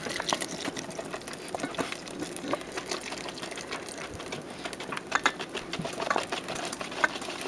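Wire whisk beating in a stainless steel pot, making rapid, irregular clicks and scrapes, while egg yolks and sugar are tempered with hot cream poured in from a measuring cup.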